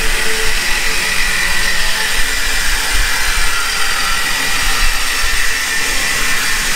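Angle grinder running steadily under load, cutting metal exhaust pipe, with a continuous whine.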